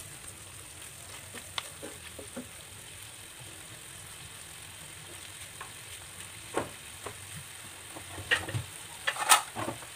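Chicken pieces sizzling in a frying pan in a thick soy-sauce and vinegar glaze: a steady hiss with scattered crackles and pops, which come more often near the end. A wooden stick stirs the pan briefly at the start.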